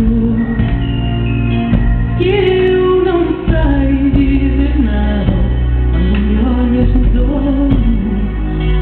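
A woman singing a slow song over amplified backing music, holding long notes with vibrato above a heavy, steady bass.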